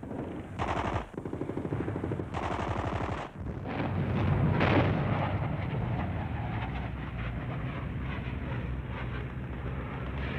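Two rapid bursts of machine-gun fire, a short one and then a longer one, followed by a steady low rumble of battle noise.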